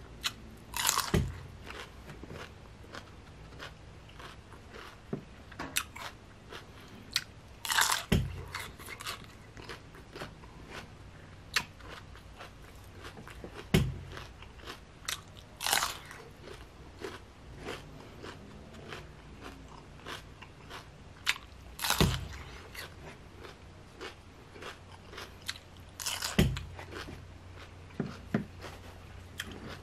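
Crisp bites into a pickled cucumber, about five loud crunches several seconds apart, with wet chewing crunches in between.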